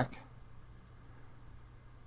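Faint room tone: a low steady hum under light hiss, with the tail of a spoken word at the very start.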